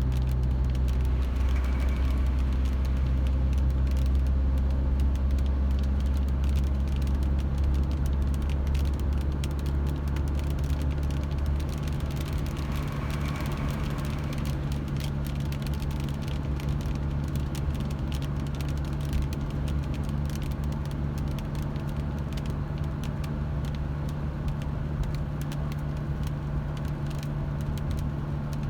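A car being driven, heard from inside: a steady low drone of engine and road noise that eases somewhat after about ten seconds, with light crackling ticks throughout.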